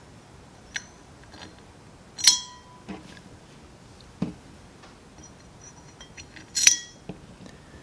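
Small carburetor parts being handled and fitted while new floats go in: a few light clicks and taps, with two sharper metallic clinks about two seconds in and near the end, the first ringing briefly.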